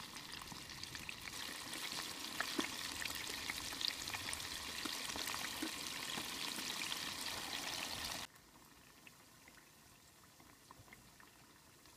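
Hot oil crackling and sizzling as battered banana and sweet potato pieces deep-fry in a small pot, with many small pops. The sound drops suddenly to a faint hiss about eight seconds in.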